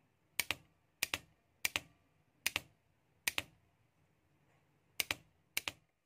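Homemade spot welder's timer-driven relay clicking, seven sharp double clicks: each pulls in and releases about a tenth of a second later, the 0.12-second weld pulse cutting off.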